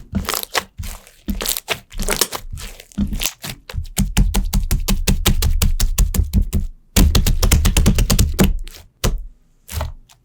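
Slime being squished and worked, giving runs of rapid crackling pops and clicks. The pops are scattered at first, then come in two dense stretches with a short break between them, and end in a few separate pops.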